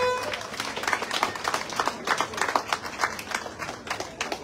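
A crowd applauding with many quick handclaps, thinning out near the end.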